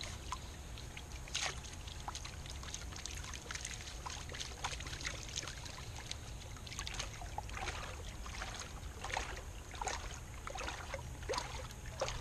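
Water and gravel sloshing and splashing in a Garrett Super Sluice gold pan as it is swirled. Many small irregular splashes and gravel clicks run over a steady low rumble.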